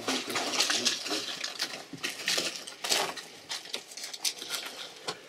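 Irregular clicking and rustling of emergency medical equipment being handled, with an infant resuscitation bag being squeezed. The clicks are densest about two to three seconds in, then thin out.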